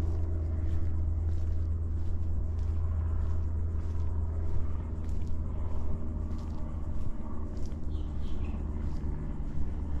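Steady low rumble of distant road traffic under footsteps on a trail at an even walking pace, about two steps a second. A bird gives a few short chirps about eight seconds in.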